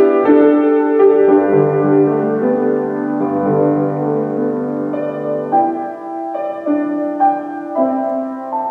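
Grand piano played solo: slow, held chords, giving way to a sparser line of single notes in the second half.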